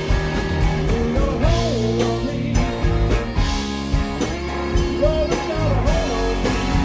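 Live rock band playing: electric guitars, bass and drums, with a sung vocal line rising and falling in two phrases.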